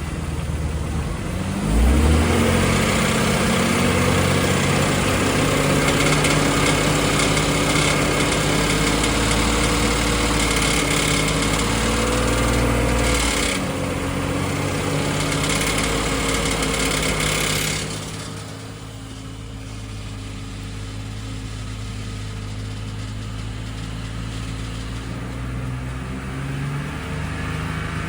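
BMW M54 3.0-litre straight-six engine held at raised revs, around 2000 rpm, for about sixteen seconds, then dropping back to idle. At these revs it makes a chattering, knocking noise from the cracked plate that joins the torque converter to the engine.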